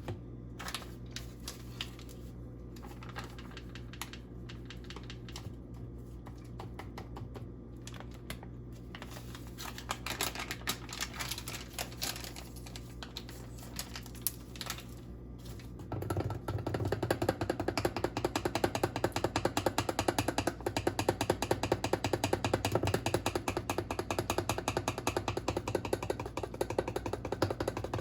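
Scattered small clicks, then from about halfway in a louder, dense stream of rapid clicking and rattling, like a small hand-worked kitchen mechanism or utensil.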